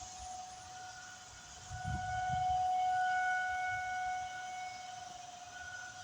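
Outdoor tornado warning siren sounding a steady, unwavering tone during a test, swelling louder about two seconds in and then fading again.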